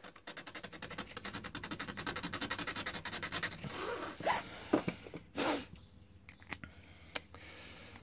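Small file rasping across a brass Yale 8 key blank in quick, even strokes, cutting at pin position four where an impression mark showed. The filing stops about three and a half seconds in, followed by a few scattered handling clicks and scrapes.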